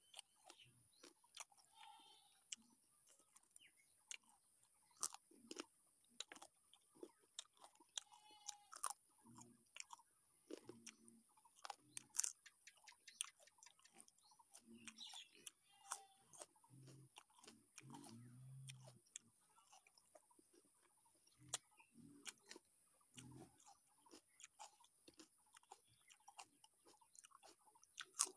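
Close-up chewing and crunching, with many sharp mouth clicks and smacks, of fried chicken leg and a bitten slice of raw red onion.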